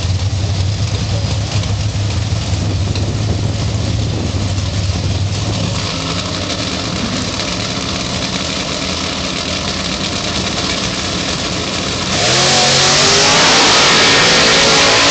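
Drag-racing cars' engines idling and burbling at the starting line. About twelve seconds in, one launches at full throttle, its engine running loud with the pitch climbing as it accelerates away.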